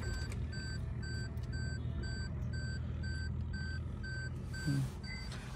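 Maruti Suzuki Brezza's dashboard warning chime beeping steadily, about two short beeps a second, with the ignition switched on. A low steady hum sits underneath.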